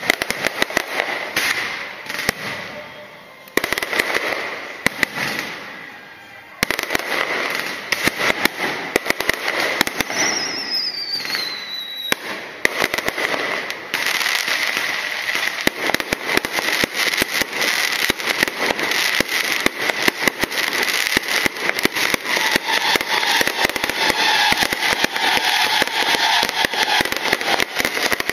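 Aerial fireworks show: shells bursting overhead with dense crackling. The bangs become an almost unbroken barrage from about a quarter of the way in, and a whistle falls in pitch about ten seconds in.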